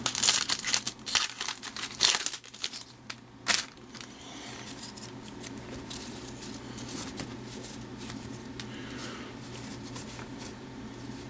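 A foil baseball card pack wrapper being torn open and crinkled in loud bursts over the first few seconds, then only faint rustling of the pack and cards over a low steady hum.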